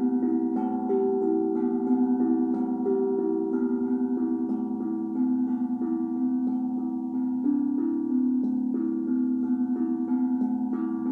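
Steel tongue drum struck with mallets, played as a free, unhurried melody: two or three new notes a second, each ringing on and overlapping the next.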